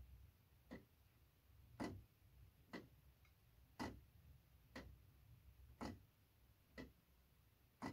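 3D-printed plastic pendulum clock ticking: the escapement gives about eight sharp ticks, roughly one a second. The gaps alternate slightly short and long, so the tick-tock is a little out of beat.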